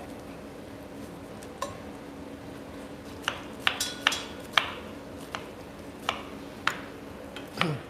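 Chef's knife dicing an onion on a wooden cutting board: about ten sharp knocks of the blade on the board, spaced unevenly and most from about three seconds in. Under them runs the steady hum of a range hood fan.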